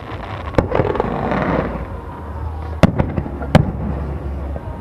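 Aerial fireworks shells bursting over the sea: a sharp bang about half a second in, a hissing crackle just after, then two more bangs near the three-second mark, the second the loudest.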